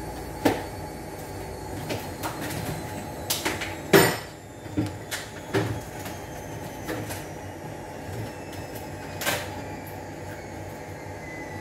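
Scattered knocks and clatter of grocery items being handled and set down, with one loud thump about four seconds in, over a steady low background noise.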